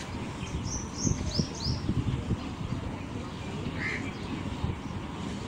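Birds calling: a quick series of four short, high, falling chirps about a second in, then a single lower call near the end, over a steady low rumble.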